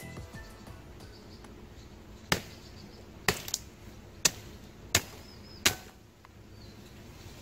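Small camping axe with a steel head cut from a circular saw blade chopping into a thin green sapling: five sharp strikes, starting about two seconds in and coming a little under a second apart.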